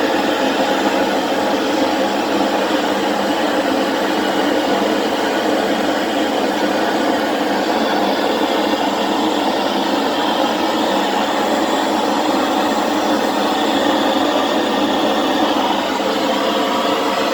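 Brazing torch flame burning steadily as it heats copper pipe for a silver-brazed joint.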